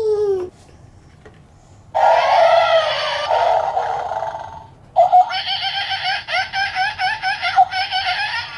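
Laughing in two bouts, the second a long run of quick rhythmic ha-ha pulses.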